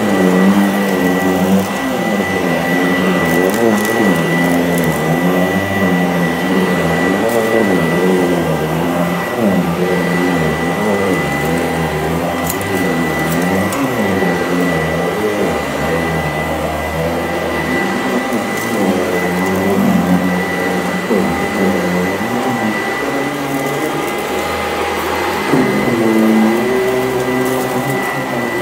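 Sanitaire SC899 commercial upright vacuum running steadily with a constant high whine, its hum rising and falling in pitch every second or two as it is worked over a mat. Scattered crunching crackles come from salt being picked up off the mat, thickest about halfway through.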